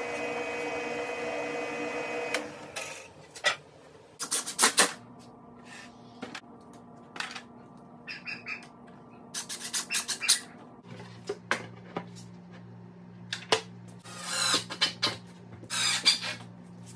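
A drill press motor runs steadily for about the first two seconds, then stops. Several short bursts follow from a cordless drill-driver driving screws, along with scattered knocks from handling the wood and hardware. A steady low hum starts about two-thirds of the way through.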